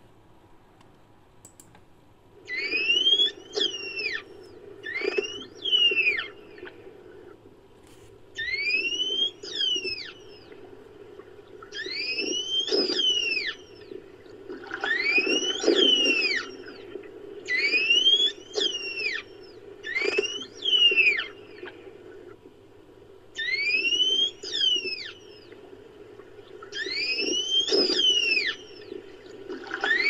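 Made-up creature sound effect built from recorded dolphin whistles: about ten separate whistles a couple of seconds apart, each rising then falling in pitch over about a second, with a low hum beneath each one.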